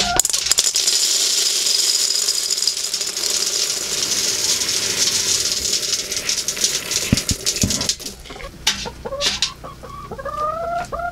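Feed pellets pouring from a scoop into a galvanized metal can, a dense rattling hiss for about eight seconds that then stops. A few clicks follow, and hens start clucking near the end.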